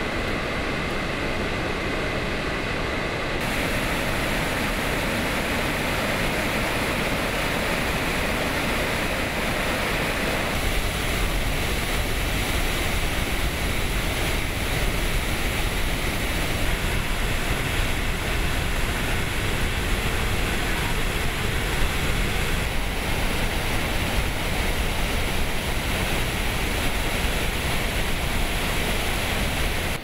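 Dam spillway discharging floodwater after a typhoon: a loud, steady rushing of water crashing into the plunge pool amid spray. The sound changes a little about three and ten seconds in, and the water noise continues throughout.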